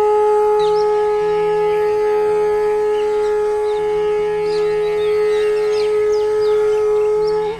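A wind instrument holding one long, steady note that ends near the end, with a new, lower note sliding downward just after.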